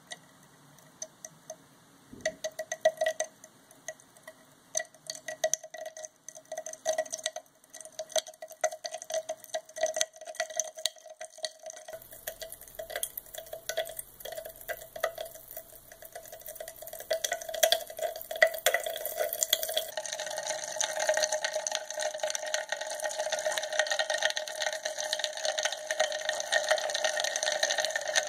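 Test tube of potassium permanganate and sulfuric acid under a layer of alcohol, popping with small sharp cracks as manganese heptoxide flashes at the acid–alcohol boundary. The pops are scattered at first and grow denser, becoming a near-continuous crackle over the last third.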